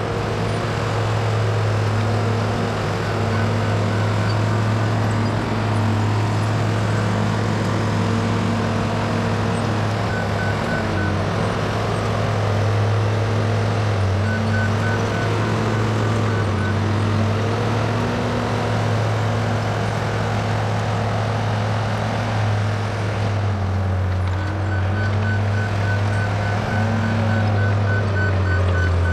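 Case 850K crawler bulldozer's diesel engine working, its pitch rising and falling with the load, with the reversing alarm beeping in several runs, the longest near the end.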